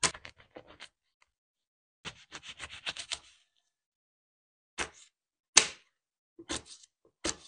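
Knife chopping on a stainless steel cutting board: quick runs of light taps, then a few single chops spaced about a second apart. Light clicks, hardly any noise from the board.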